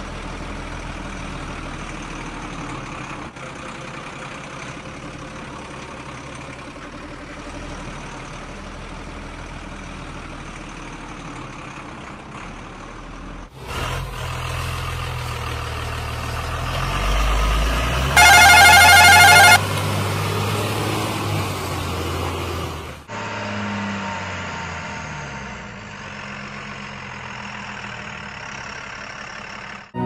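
Heavy truck engine sound running, broken into three abruptly spliced segments. In the middle segment the engine revs up, and a loud horn blast of about a second and a half sounds just past the midpoint.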